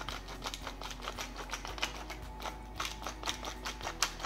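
Pepper mill being twisted by hand, grinding peppercorns: a quick, uneven run of crackling clicks.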